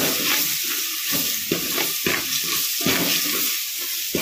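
Hot oil sizzling as red chutney and garlic fry in a metal pot, stirred with a steel ladle that knocks and scrapes against the pot at irregular moments.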